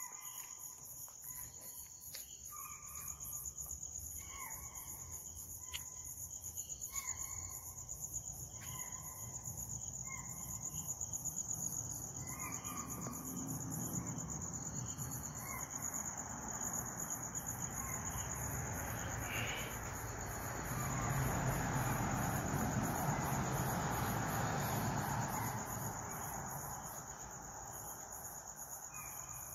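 Chital (spotted deer) alarm calls: short, sharp yelps repeating about every second or so over a steady high drone of night insects. The calls are the deer's alarm at a tiger, which they are sure is close by. Past the middle, a broad rushing noise swells for several seconds.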